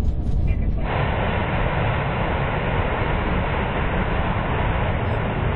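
Steady low rumble on the flight deck of an Airbus A380 rolling along the ground after landing, with an even hiss that joins in about a second in and holds.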